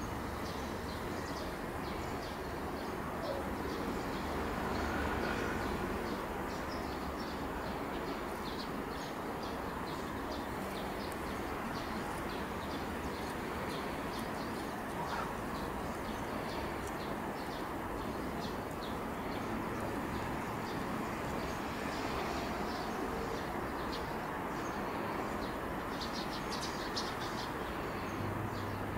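Small songbirds chirping and twittering in many short, high notes that come thicker near the end, over a steady low background rumble.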